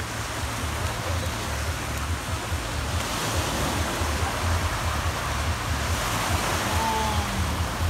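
Small waves breaking and washing on a sandy shore, a steady hiss of surf, with wind buffeting the microphone in an uneven low rumble.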